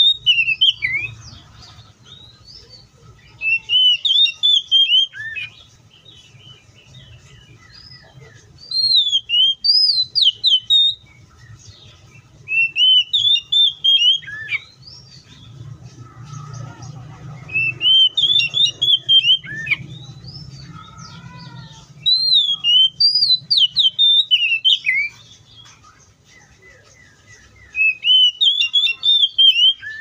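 Oriental magpie-robin singing: about seven loud phrases of varied, sweet whistles, glides and quick trills, each lasting two to three seconds, with short pauses between them. A faint low hum runs underneath.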